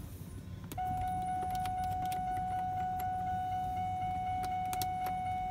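A continuous electronic warning tone, one steady buzzer-like pitch, comes on about a second in and holds for about six seconds, with scattered small clicks of plastic and metal being handled over a low steady hum.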